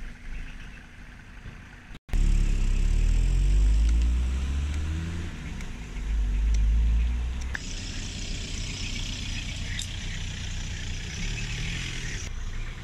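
A motor vehicle engine running close by, loud and low, its pitch shifting up and down for a few seconds after a sudden cut in. It gives way to a steadier, quieter high hiss.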